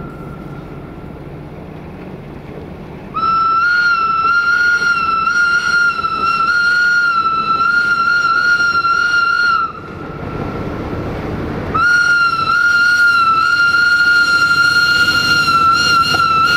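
Locomotive horn sounding long, steady single-note blasts: one held about six seconds, then after a short break a second starting near the end, with the rumble of the approaching train between them.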